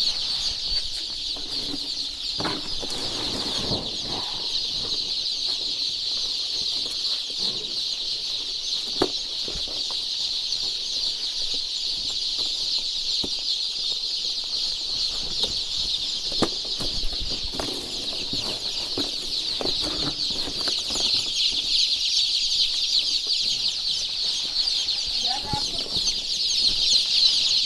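A large flock of chickens in a poultry house, a dense, continuous high-pitched chorus of calls, with a few lower calls and occasional faint knocks.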